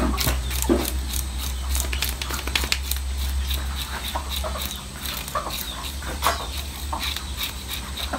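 Knife scraping the scales off a milkfish (bangus): quick, irregular scrapes and clicks as the blade is worked along the fish.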